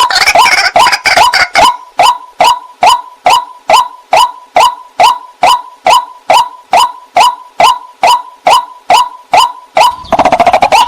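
White-breasted waterhen calling, a steady series of short repeated notes about two and a half a second. The calls come faster and overlap in the first second or so, and again near the end.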